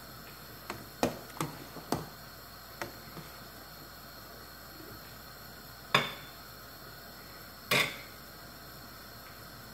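Metal ladle knocking against a stainless steel stockpot while stirring simmering soup: several light clinks in the first three seconds, then two louder clanks about six and eight seconds in.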